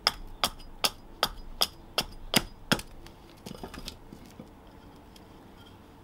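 A wooden club hammering the poll of a hatchet driven into a green plum billet to split it: about eight sharp, ringing knocks, roughly two or three a second. The strikes stop about three seconds in, followed by a short clatter as the split halves come apart.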